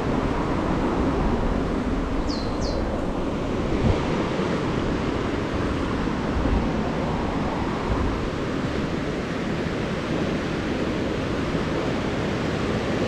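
Steady rush of a muddy river in flood flowing fast over rocks and past bridge piers.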